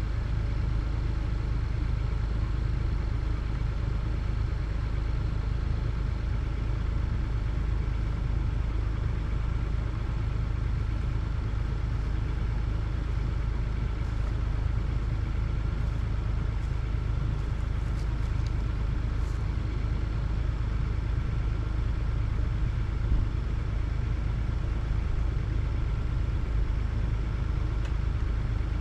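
An engine idling steadily, with no revving.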